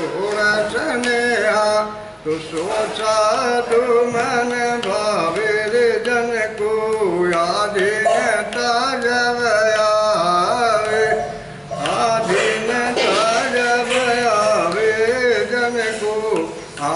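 A man singing a Hindi devotional bhajan, a slow melody with a wavering, ornamented pitch, in long phrases with a couple of short breaks between them.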